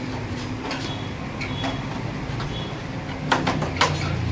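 Bakery workplace noise: a steady low hum with light scattered clatter, and two sharp clinks about three and a half seconds in.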